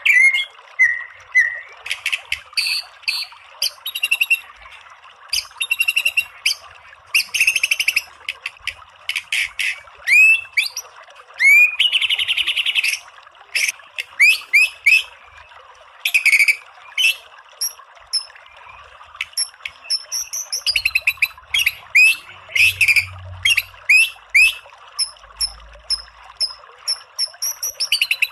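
White-rumped shama (murai batu) singing continuously: loud whistled phrases, quick upward-sweeping notes and fast rapid-fire chattering bursts ("tembakan"), over a steady hiss.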